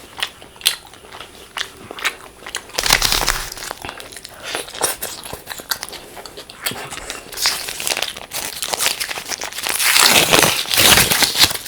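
Close-miked eating sounds: bites and chewing with many sharp clicks, and louder noisy stretches about three seconds in and near the end.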